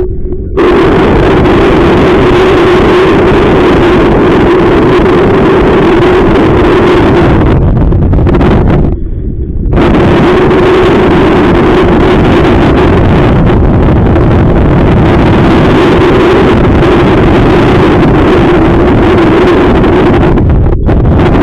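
Strong wind buffeting the microphone, loud and continuous, over a steady low hum. It drops away briefly about nine seconds in.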